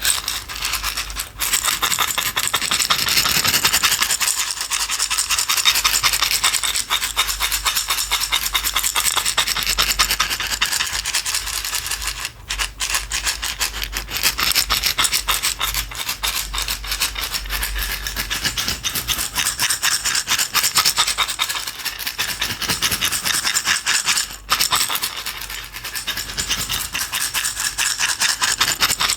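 A container of small hard pieces shaken rapidly and without stopping, making a dense rattle with three brief breaks: about a second in, near the middle, and a few seconds before the end.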